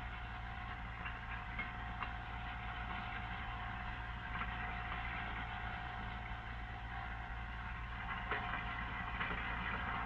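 Electric food waste disposer running with a steady motor hum as tap water pours into it, with a few faint clicks.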